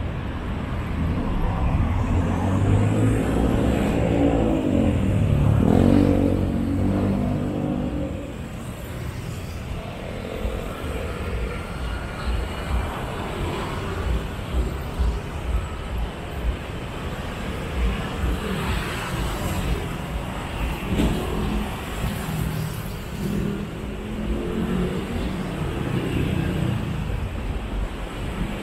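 Street traffic. A motor vehicle's engine passes close, its pitch rising and falling and loudest about six seconds in, then a steady wash of traffic noise.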